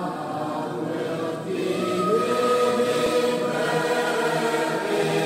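Choir singing slow, long-held chords, moving to a new chord about two seconds in.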